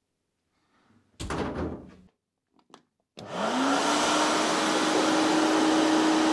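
Sandblasting cabinet switched on: its motor spins up with a rising whine about three seconds in, then holds a steady whine under a loud, even hiss. Before that comes a brief clatter as the part goes into the cabinet.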